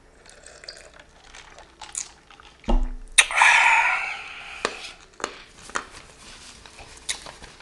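A man taking a drink of juice. There are small clicks of handling and the mouth, a knock about three seconds in, then a noisy sip lasting about a second, followed by quieter swallowing and mouth clicks.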